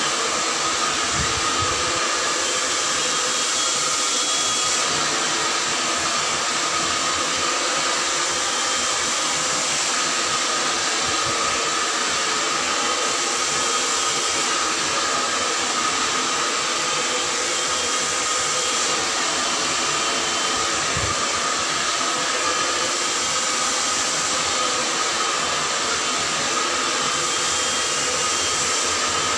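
Handheld hair dryer running steadily as it dries wet hair, a constant rush of air with a steady whine through it.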